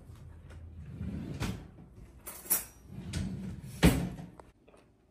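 Handling noise with a low rumble and three knocks or bumps, the last and loudest about four seconds in, after which it goes quiet.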